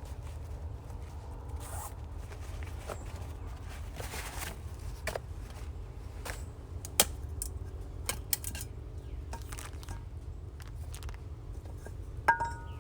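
Camp cooking gear being handled: scattered clicks and knocks, with one sharp click midway and a metal clink that rings briefly near the end.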